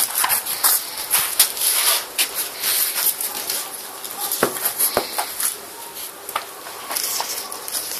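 Two puppies scuffling and play-fighting on a tiled floor: a busy, irregular patter of paws and claws with scratchy scuffing.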